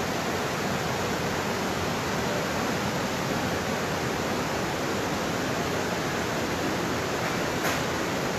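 River water rushing steadily over a low waterfall and through rocky rapids, an even, unbroken rush. A single short click near the end.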